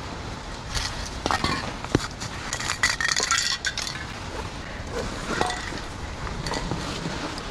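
Metal spray paint cans clinking and knocking together in a fabric backpack as it is packed, busiest from about one to four seconds in, with a few scattered clinks later.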